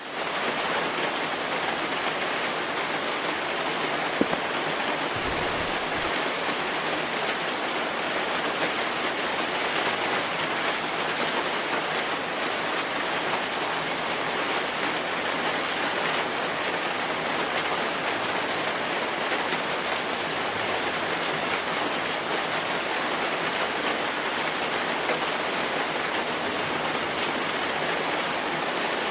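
Steady rain falling, a continuous even hiss with no break, with one short tick about four seconds in.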